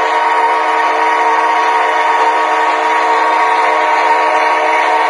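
Model train's sound system sounding a horn, held steady and unbroken.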